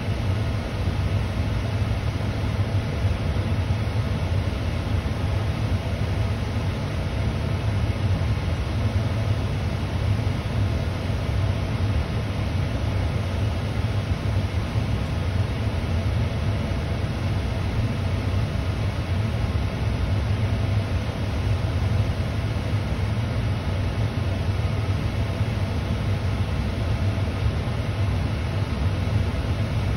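Steady low hum and even rushing noise of a parked car's engine idling, heard from inside the cabin.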